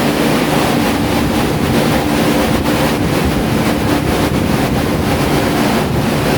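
Several drying fans and dehumidifiers running together in a room: a loud, steady rush of air with a low hum underneath. They are set up to dry out water damage.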